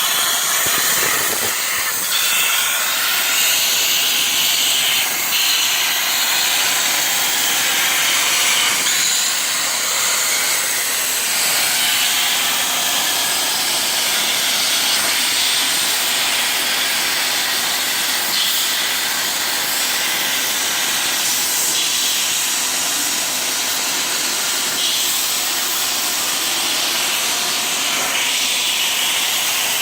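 CNC plasma torch cutting quarter-inch aluminium: a steady, loud hiss.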